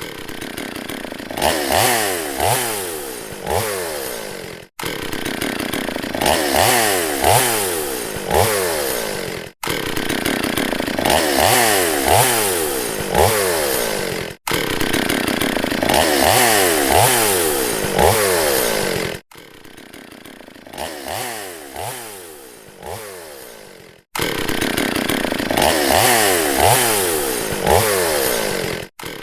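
Two-stroke chainsaw running and being revved three or four times in quick succession, pitch rising and falling with each blip of the throttle. The same few seconds repeat over and over, each cutting off abruptly about every five seconds; one repeat is quieter.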